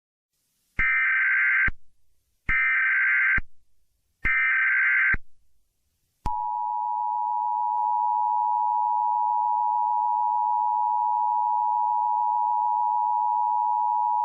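Emergency Alert System SAME header: three short bursts of warbling digital data, each about a second long and evenly spaced. About six seconds in, the steady two-tone EAS attention signal (853 and 960 Hz together) starts and holds level.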